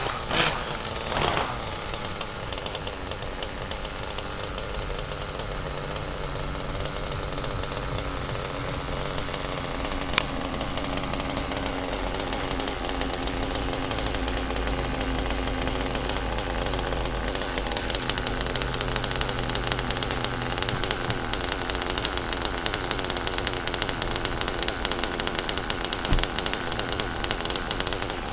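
Small two-stroke nitro glow engine of an RC car running steadily, its pitch shifting a little now and then, with one sharp click about ten seconds in.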